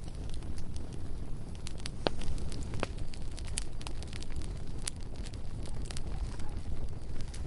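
Bonfire burning: a steady low rumble of flames with irregular sharp crackles and pops of burning wood, a few louder snaps scattered through.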